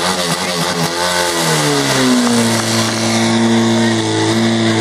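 Portable fire pump's engine running hard, its note wavering and then dropping to a steady drone about two seconds in.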